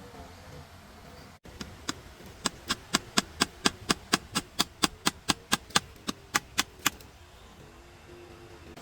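A run of about twenty sharp, evenly spaced knocks, roughly four a second, starting about a second and a half in and stopping about seven seconds in.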